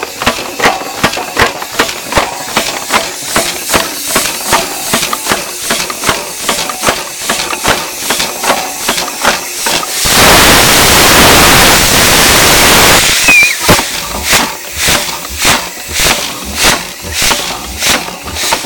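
Antique 15 hp Acme steam engine running on compressed air, freshly oiled after more than 50 years idle: its exhaust chuffs about twice a second with clanking from the rods and valve gear. Just past halfway a steady loud hiss of air drowns it out for about three seconds, then the chuffing goes on.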